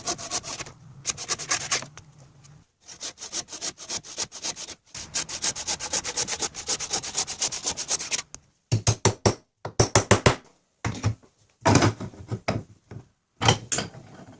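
Hand saw cutting through a wooden blank, quick back-and-forth strokes with two short pauses. In the second half the strokes come slower, separate and louder.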